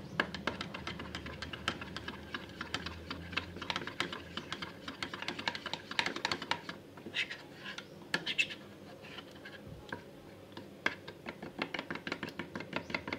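Metal spoon stirring flour and water in a small plastic tub, with rapid, irregular clicks and scrapes of the spoon against the tub's sides and bottom as the mixture is worked into a lump-free paste.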